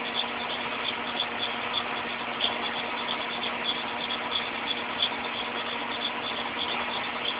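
Automatic glass sandblasting machine running: a steady hiss with a constant hum under it and many small irregular ticks.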